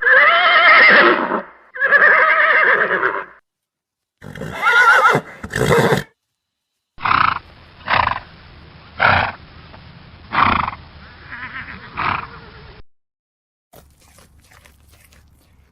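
Horses neighing: two long whinnies at the start, then a call mixed with sharp clicks, then a run of about five short neighs roughly a second apart, dying to faint noise near the end.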